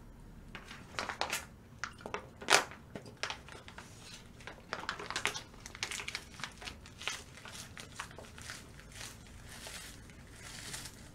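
Close-up crunching and crinkling of someone eating: irregular crisp crackles, the loudest about two and a half seconds in, easing to a soft rustle after about eight seconds.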